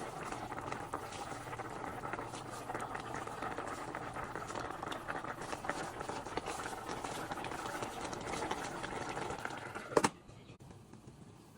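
Pot of pompano fish soup boiling steadily, with constant bubbling and small pops. About ten seconds in there is a sharp click, and then the bubbling drops away to a faint hiss.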